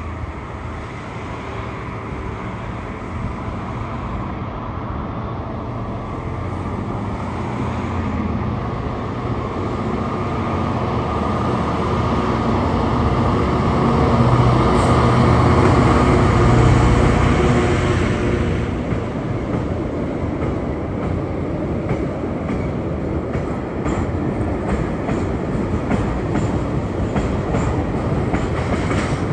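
Class 66 diesel locomotive's two-stroke V12 engine drawing near and passing, loudest about halfway through, followed by its train of car-carrier wagons rolling by with the wheels clicking over rail joints.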